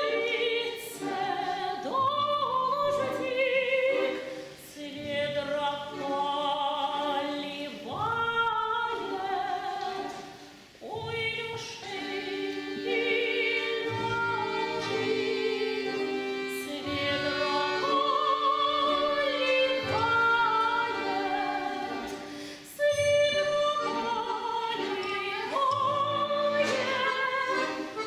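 A woman soloist singing with a wide vibrato, accompanied by an orchestra of bayans and accordions, in phrases with short breaks between them.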